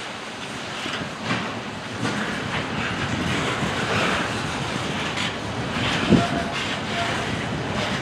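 Freight train of open-top gondola cars rolling past, steel wheels clicking over the rail joints with a steady rumble and a sharper clank about six seconds in.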